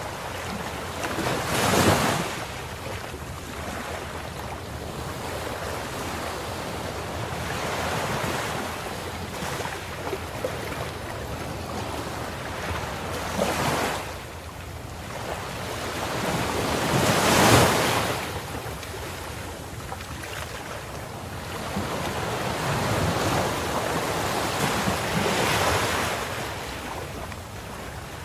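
Ocean waves breaking on the shore, a rushing surf that swells and falls back every few seconds. The two loudest waves come about two seconds in and a little past halfway.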